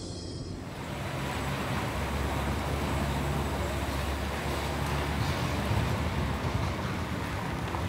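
Steady road noise of a moving vehicle: a low rumble under an even hiss, rising slightly about a second in.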